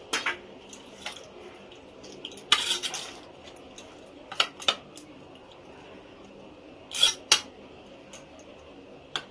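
Steel spoon clinking and scraping against a stainless steel tiffin box while stirring prawns in a thick paste. The strokes are scattered single clinks, with a longer scrape about two and a half seconds in.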